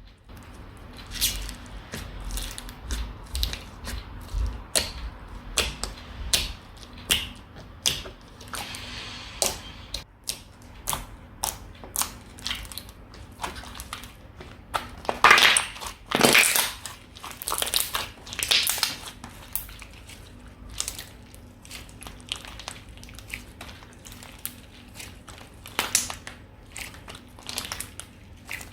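Slime being squeezed, stretched and poked by hand: a dense run of sharp clicks, pops and crackles, loudest in a cluster around the middle.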